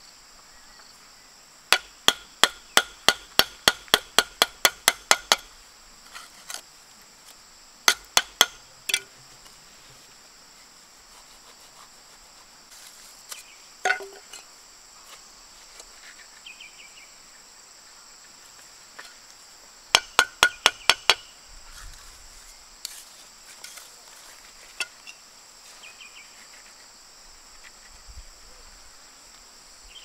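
Bricks being tapped down into a mortar bed: sharp, clinking taps in quick runs of about three a second, a dozen near the start, a few more soon after and about seven more later on. A steady high insect drone runs underneath.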